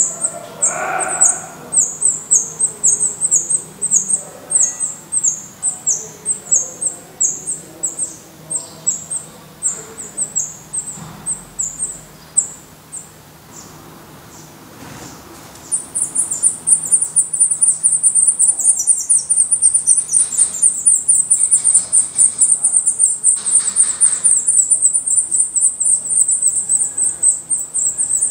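Black redstart nestlings begging for food: thin, high-pitched calls repeated about two or three times a second, stopping about thirteen seconds in, then starting again about sixteen seconds in as a rapid, continuous chorus that runs as a parent reaches the nest.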